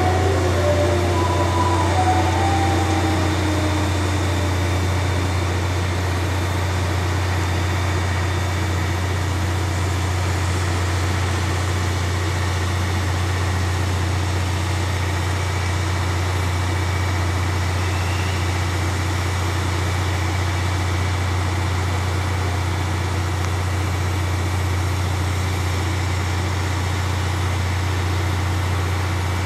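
A steady low engine drone, like an idling engine, unchanging throughout, with a few short faint tones in the first few seconds.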